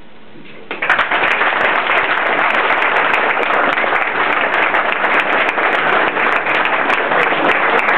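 A roomful of people clapping, which breaks out suddenly about a second in and goes on steadily.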